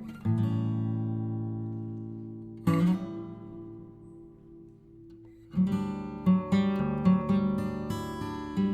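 Acoustic guitar music: two strummed chords left to ring out and fade, then from about halfway a quicker, rhythmic strumming pattern.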